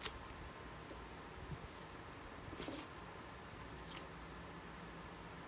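A few small clicks and handling noises from fingers working the wire ends of a 9.6 V Ni-Cd battery pack: a sharp click at the start, a quick pair about two and a half seconds in and a fainter one near four seconds, over low room noise.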